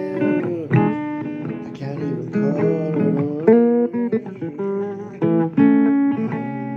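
Blues guitar playing an instrumental break of plucked notes and chords, with some notes bending in pitch.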